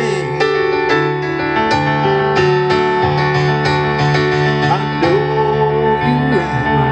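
Stage keyboard playing an instrumental passage: held chords with a melody line moving over them.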